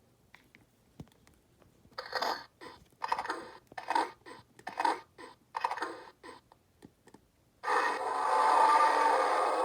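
Electronic dinosaur sound effects from a Lost World: Jurassic Park Bull T-Rex toy, played through its small speaker. A run of about eight short, raspy calls comes roughly once a second, then one long, loud call starts near the end and lasts about three seconds.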